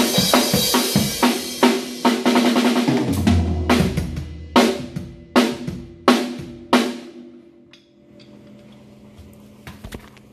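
Acoustic drum kit played fast, with snare and bass-drum hits under a wash of cymbals. About three seconds in, the playing breaks into about five single, spaced cymbal-and-drum strikes, then the kit rings out faintly, with a couple of small knocks near the end.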